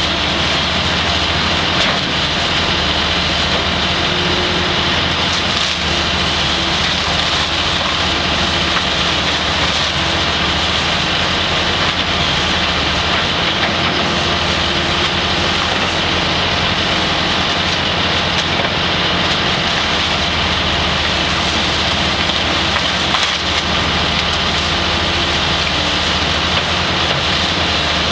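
Kobelco 200 tracked excavator running steadily under load with a constant engine drone, while its bucket crunches and splinters burnt wooden debris in a continuous crackle.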